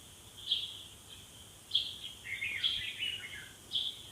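Birds chirping: short, high, falling calls about a second apart, with a busier run of them in the middle.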